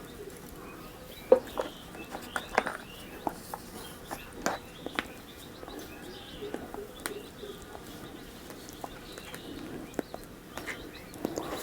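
Scattered sharp clicks and knocks of computer parts and their packaging being handled and set down, the loudest about a second in.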